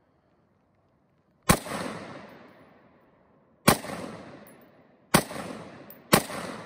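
Four gunshots: the first comes about a second and a half in, the rest about two, one and a half and one second apart. Each is a sharp report followed by a long echo that dies away over a second or so.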